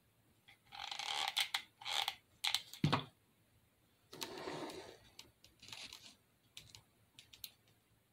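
Light clicks, taps and rustles of small painted wooden craft blocks and a hot glue gun being handled, in short bursts with pauses between. A louder stretch of rustling comes about four seconds in.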